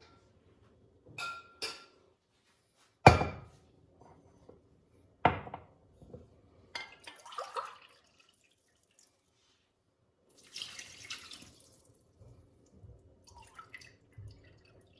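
Kitchen utensil sounds: light clinks, then two sharp knocks, the loudest sounds. About ten seconds in, warm water is poured into the cake mixture for a second or two.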